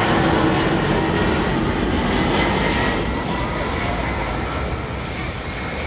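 Jet airliner flying overhead: a loud, steady rush of engine noise with a faint whine in it, slowly fading.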